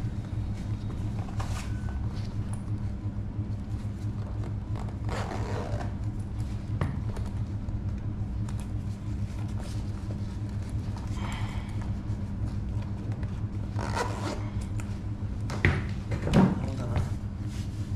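Motorcycle riding boots being pulled on and fastened: scattered short rustles and zipper-like pulls over a steady low hum, with a thump shortly before the end.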